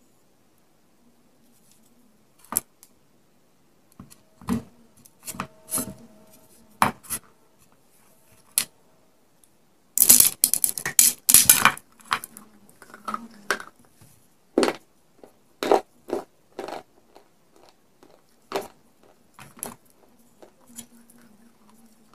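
Hard pieces of baked clay pot, coated in dried white khadi chalk paste and clay crumbs, crunching and cracking in a series of sharp snaps, with a dense burst of crackling about ten seconds in.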